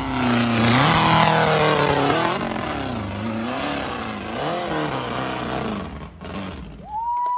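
Off-road hill-climb buggy's engine revving hard as it claws up a steep dirt hill, its pitch rising and falling several times as the throttle is worked. Near the end a high held tone cuts in.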